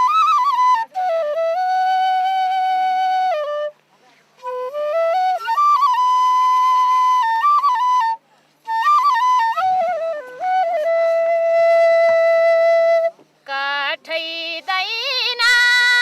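Solo flute playing a slow, ornamented melody in long held phrases with short breaks between them, turning to a quicker warbling run near the end.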